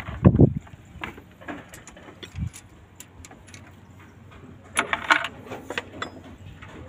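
Metal parts of a Komatsu PC200-8 engine's valve gear clinking and knocking as a rocker arm is lifted off and set down on the cover. A heavier knock comes about a quarter second in, scattered light clicks follow, and a short burst of clattering comes around five seconds.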